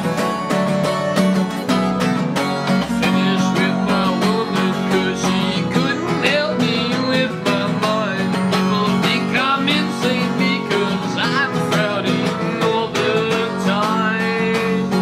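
Music led by acoustic guitar with quick, even picking over a steady low note, and a bending melody line above it through most of the stretch.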